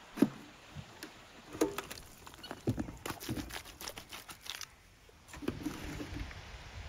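A shovel chopping and mixing stiff clay and straw in a half plastic barrel trough: irregular knocks and scrapes of the blade. A sharp knock just after the start is the loudest, and there is a short lull before the scraping resumes near the end.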